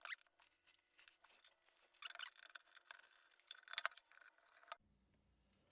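Faint light clicks and scrapes of small electronic parts and wires being handled, with a few sharper clicks about two seconds in and again near four seconds.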